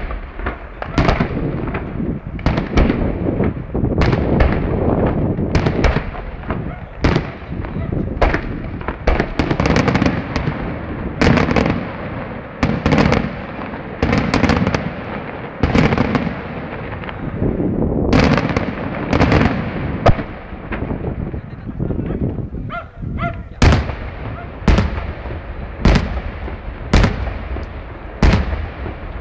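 Aerial firework shells bursting one after another, a dense run of sharp bangs with rolling echoes. Over the last few seconds the bangs come about once a second.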